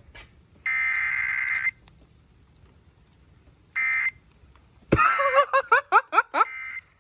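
Emergency Alert System SAME header data bursts: harsh, warbling digital tones around 2 kHz, one lasting about a second just after the start and a short one a few seconds in. Near the end comes a quick run of about eight rising chirps, ending in a brief steady tone.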